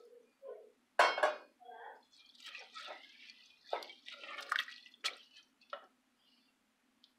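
Wooden spoon stirring rice, peanuts and water in a metal pot, giving wet sloshing and scraping in irregular strokes. There is a sharp knock about a second in.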